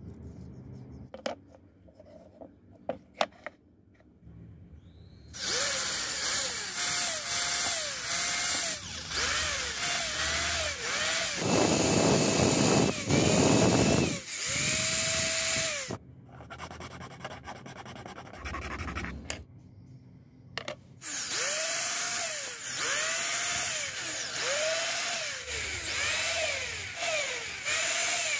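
Cordless drill boring holes through a plastic sheet, run in short trigger bursts about once a second, each rising and falling in pitch, with a few soft clicks before it starts about five seconds in. The drilling pauses for several seconds in the middle, then starts again.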